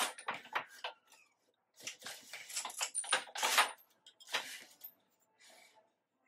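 Hand weaving on a wooden floor loom: irregular clicks, knocks and rustling from the loom, boat shuttle and yarn being handled, coming in several bursts with the loudest a little past the middle.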